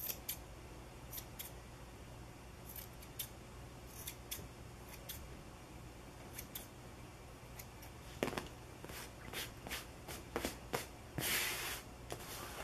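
Grooming scissors snipping a small dog's fur in short, irregular snips that come more often in the last few seconds. A brief rustle about eleven seconds in is the loudest sound.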